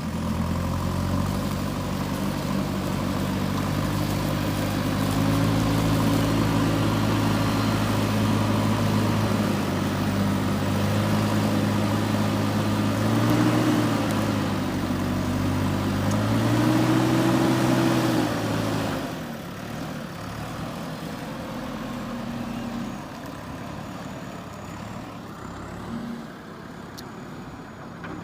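JCB 3DX backhoe loader's diesel engine running, revving up twice in the middle, then dropping back to a quieter idle about two-thirds of the way in.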